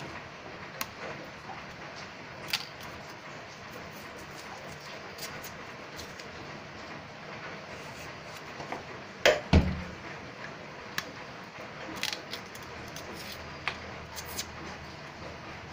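Kitchen knife peeling and cutting cassava root over a stainless steel sink: scattered small clicks and scrapes of the blade and pieces, with a louder double knock about halfway through.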